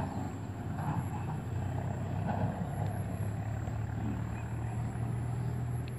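A steady low engine hum from a distant motor, growing a little stronger about halfway through.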